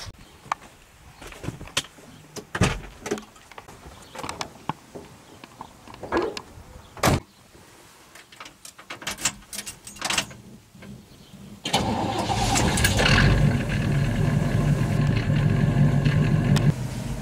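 Scattered clicks and knocks from the car's door and ignition key, then, about two-thirds of the way through, a late-1950s Chevrolet's engine starts suddenly and runs loudly and steadily at idle, dropping in level near the end.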